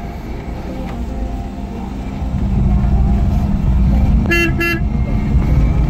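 Car engine and road noise heard from inside the cabin, getting louder about two seconds in, with a car horn giving two short toots about four seconds in.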